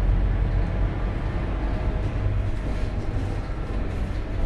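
Scania K230UB city bus in motion, heard from inside the cabin: its rear-mounted diesel engine runs with a steady low drone, mixed with road and cabin rattle noise.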